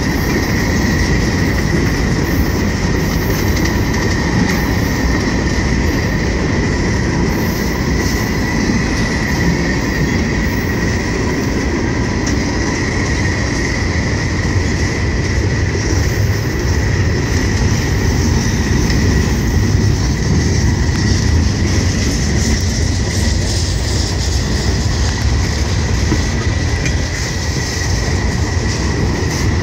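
Freight cars rolling past close by: a steady, loud rumble of steel wheels on rail, with a thin continuous high-pitched squeal from the wheels running under it.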